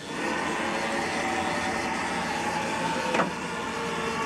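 Haas CNC mill's axis servo drive whining steadily as the edge-finder probe is jogged down, a machine sound with several steady tones that starts suddenly and carries a brief tick about three seconds in.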